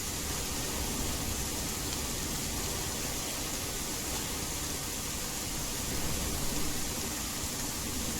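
Steady rain sound blended with white noise: an even, unbroken hiss with a low rumble underneath.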